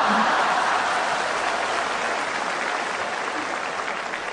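Applause from a large audience, a dense clapping that is loudest at the start and slowly dies down.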